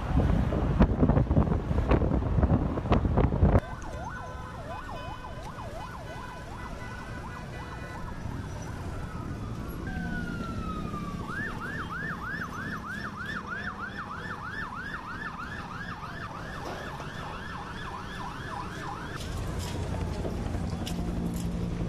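Loud wind noise buffeting the microphone for the first few seconds. It cuts off suddenly, and emergency-vehicle sirens follow, wailing. About halfway through, one siren switches to a fast yelp of about three rises a second, held for several seconds.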